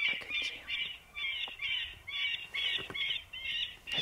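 Electronic predator caller playing a distress call: a rapid, even run of squawks, about two and a half a second, to lure coyotes in.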